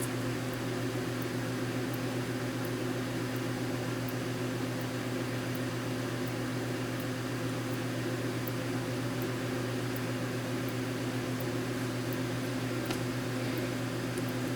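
Steady electrical hum and hiss, like a fan or small motor running, unchanging throughout.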